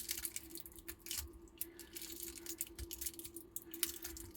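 Faint handling noises, small clicks and rubs, as the loose battery management circuit board is picked up and turned over, over a steady low hum.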